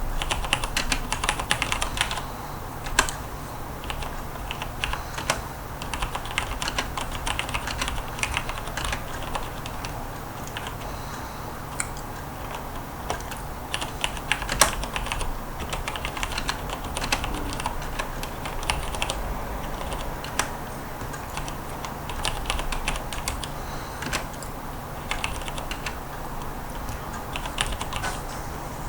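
Typing on a mechanical keyboard with Cherry MX switches: irregular runs of key clicks and clacks with short pauses between them, and a few harder single keystrokes.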